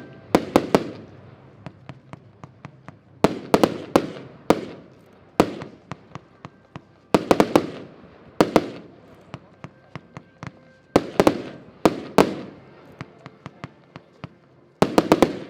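Diamond Inferno compound firework battery firing: clusters of sharp bangs come every one to three seconds, each followed by a short echoing tail.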